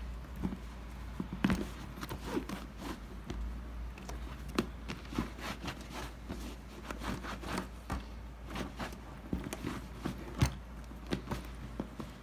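Handling noise from cleaning a coated-canvas leather-trimmed bag: a brush tapped against a glass bowl and the bag, then a towel rubbing and wiping the canvas. Scattered light clicks and short scrapes over a low steady hum.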